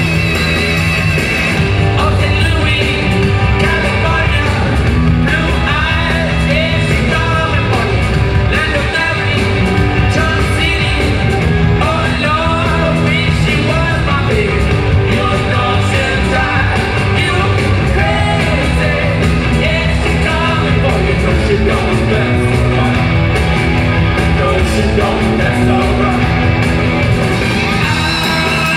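Rock band playing live in an arena: singing over electric guitars, bass and drums, loud and continuous, with the hall's reverberation.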